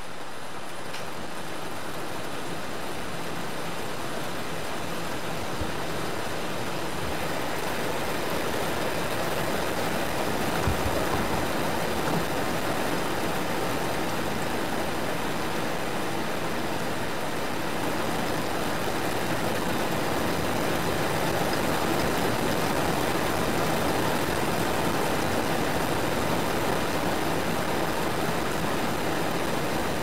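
Steady rain falling, a dense even hiss of many drops, growing a little heavier over the first ten seconds or so.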